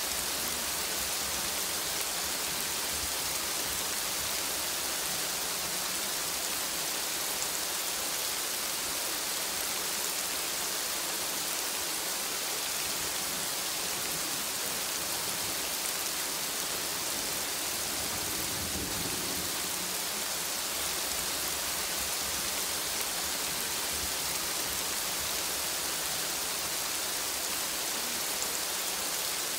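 Steady recorded rain sound, an even hiss with no breaks, with a brief low rumble a little past halfway.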